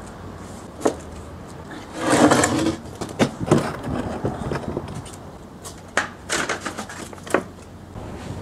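White plastic patio table being handled and shifted on brick paving: a scrape lasting under a second, about two seconds in, and a scatter of sharp knocks.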